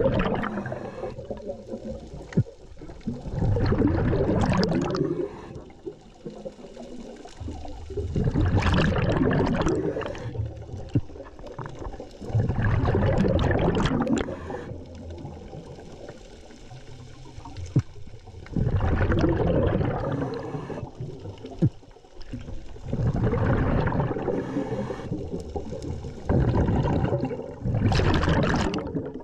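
Scuba diver breathing through a regulator underwater: a loud bubbling rush of exhaled air about every four to five seconds, with quieter inhales between, and a few sharp clicks.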